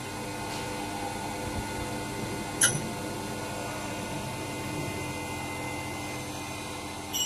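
Mini CNC wood lathe running steadily, its spindle motor giving a constant whine while the tool cuts the spinning wooden workpiece. A sharp click comes about two and a half seconds in and another near the end.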